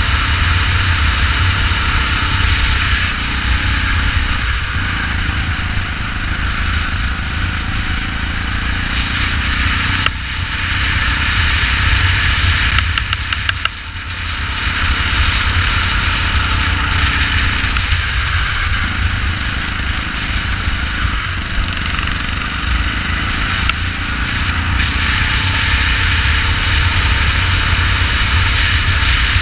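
Go-kart engine running on track, heard from on board, with the sound easing off briefly about ten and fourteen seconds in.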